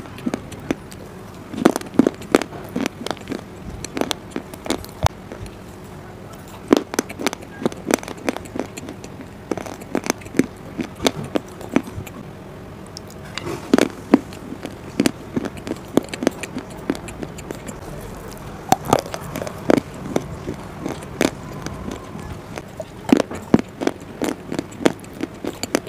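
Close-miked mouth crunching and chewing of hard, brittle 'Punjab biscuits', heard as runs of sharp, irregular crunches with short pauses between them.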